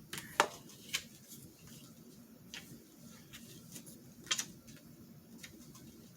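Scattered light clicks and taps of paper cut-outs and craft supplies being handled on a tabletop. The sharpest click comes about half a second in and another about four seconds in.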